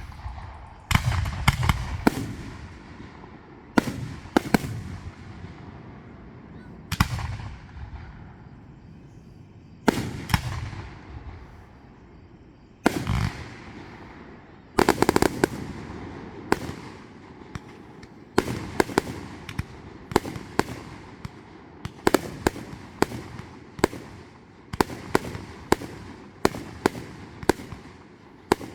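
Fireworks exploding: sharp bangs a second to three seconds apart, several trailing off in a rolling rumble, then from about two-thirds of the way in a quicker string of bangs, about two a second.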